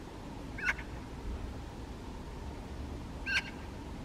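Eurasian magpie giving two short calls with a twisting pitch, about three seconds apart, over a steady low rumble.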